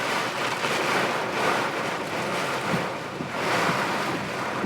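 Heavy downpour and strong wind beating on a car, heard from inside as a dense, steady roar that swells and eases every second or two.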